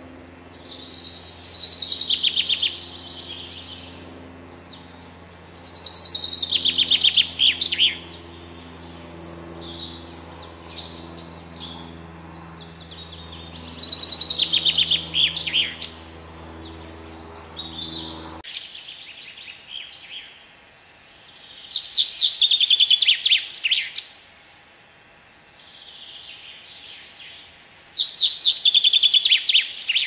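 Male common chaffinch singing: five full song phrases, each a rapid run of notes ending in a quick flourish, repeated every six or seven seconds, with softer notes between.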